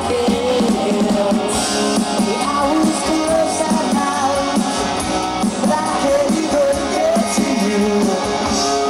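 Live rock band playing: two electric guitars and drums, with a male lead vocal sung into a microphone over a loud, steady band sound.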